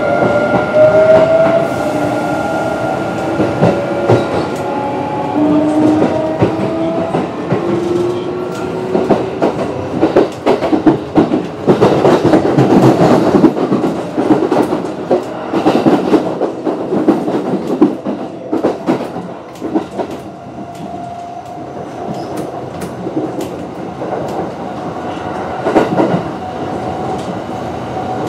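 Kintetsu 9020-series electric train running, its Mitsubishi IGBT-VVVF inverter and traction motors whining in rising tones over the first several seconds as it picks up speed. The wheels then clatter over rail joints for several seconds before the running noise settles, with a faint steady tone after about twenty seconds.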